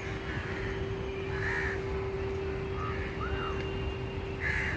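Crows cawing a few times, with one call about a second and a half in, softer calls around three seconds, and a louder call near the end, over a steady low rumble and a constant hum.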